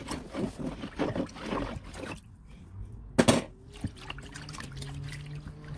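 A gloved hand squishing and stirring elderberries in liquid, with irregular wet sloshing. There is a sharp knock about three seconds in, and after it a steady low hum.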